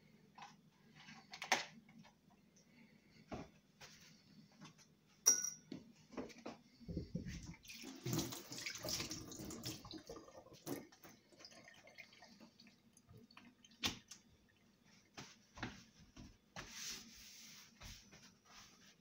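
Tap water running into a stainless steel kitchen sink for about three seconds, starting about seven seconds in, with a shorter splash near the end. Scattered sharp clicks and knocks of items being handled come before and after, over a faint steady low hum.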